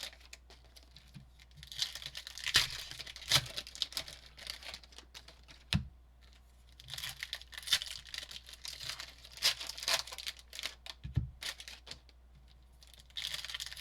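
Foil wrappers of trading card packs being torn open and crinkled by hand, in irregular rustling bursts with a few sharp clicks.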